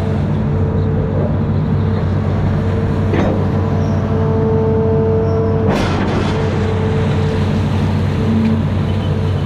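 Amphibious excavator's diesel engine running steadily, with a steady whine over it. There are two short sharp sounds, one about three seconds in and a louder one near the middle.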